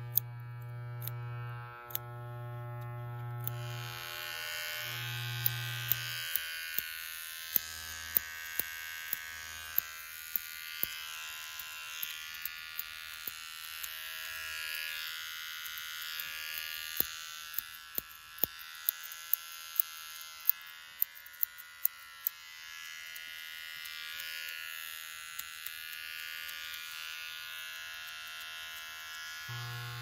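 An electric shaver buzzing steadily and high-pitched, with sharp clicks scattered through it, at times a couple a second. At the start a low electric hum stops and starts, then falls away about six seconds in.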